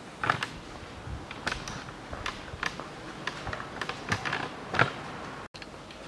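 Scattered light clicks and knocks, irregularly spaced: handling sounds of someone going to a car and opening its bonnet.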